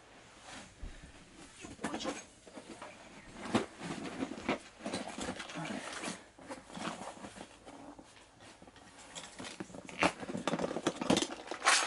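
Irregular clicks, taps and rustles of small parts and packaging being handled and rummaged through, busier and louder near the end.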